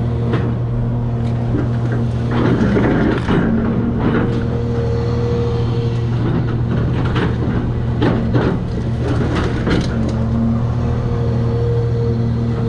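Cat 336 excavator's diesel engine running steadily under load, with a hydraulic whine that comes and goes and bursts of crunching and crashing debris about two seconds in and again in the middle.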